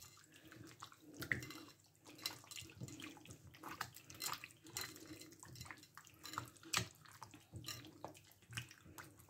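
Hands squishing and kneading chicken pieces in a thick yogurt and spice marinade: faint, irregular wet squelches.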